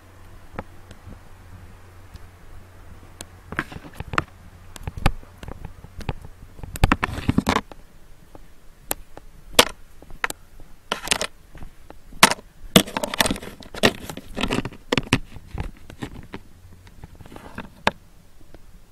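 Irregular clicks, knocks and rustles of a hand-held camera being handled while someone walks across a tiled floor. Under them a low steady hum, from the electric fan in the bedroom, fades out about eight seconds in.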